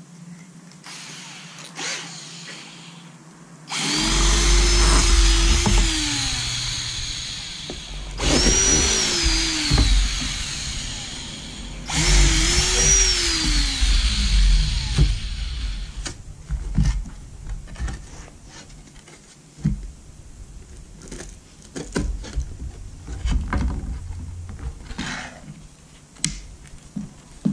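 Cordless drill drilling three holes through a plywood kick panel for push clips. Each run spins up, holds, then winds down over two to three seconds. After that come scattered clicks and knocks as the panel is handled.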